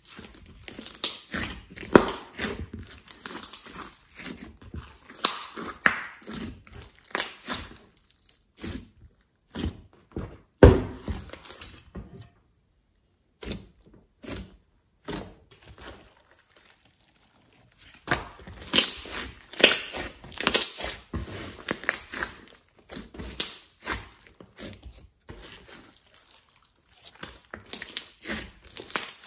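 Glossy slime being stretched, poked and squeezed by hand, giving a run of sticky clicks and crackles. There is one louder snap about a third of the way in, then a quieter stretch with only a few pops before the crackling picks up again.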